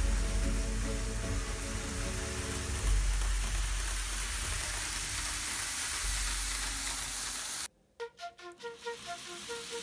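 Background music over a steady hiss and low hum of N-scale model trains running on track. About eight seconds in, the hiss and hum cut off suddenly and only the music goes on, a melody of separate held notes.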